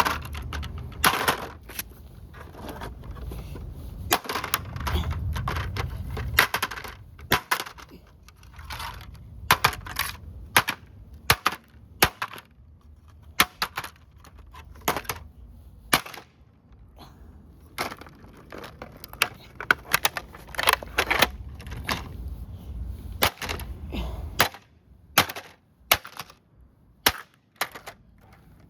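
Sharp, irregular blows and cracks of a plastic remote-control car being smashed, dozens of strikes with short pauses between them.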